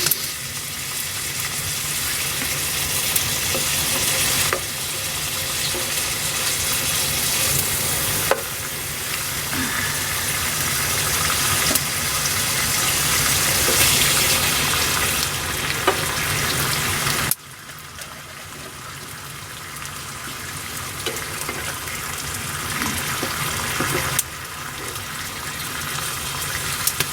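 Bacon and eggy bread frying in a pan on a wood burner: a steady sizzling hiss with small pops. The sizzle drops abruptly in level about two-thirds of the way through and steps up and down suddenly a few other times.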